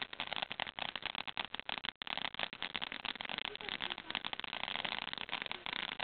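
Firework crackling: a dense, continuous run of rapid small pops and crackles, briefly cutting out about two seconds in.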